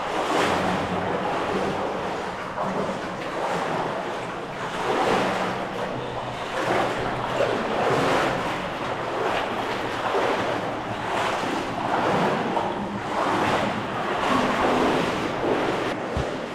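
Water splashing and sloshing in repeated surges about once a second, as of someone wading through a cave stream.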